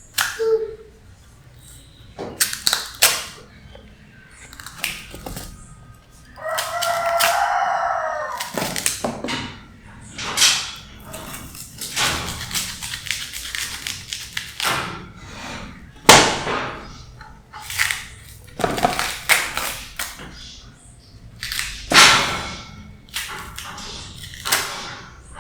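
Kitchen clatter: a run of separate knocks and clinks, like dishes, pots and utensils being handled. About six seconds in there is one high, wavering call lasting about two seconds.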